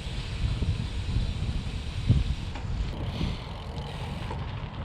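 Wind buffeting the microphone as a heavy, uneven low rumble with hiss above it, and a louder thump about two seconds in.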